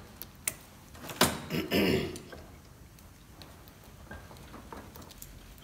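Hand tools clicking and scraping on the bolts of a motorcycle brake disc as it is fitted to the wheel, with a louder metallic clatter about a second in, then faint ticks.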